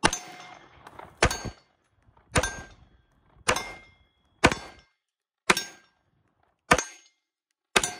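Eight 9mm pistol shots from a Glock 19X, fired at a steady pace of about one a second. Several shots are followed by a short metallic ring as rounds strike the steel plate targets.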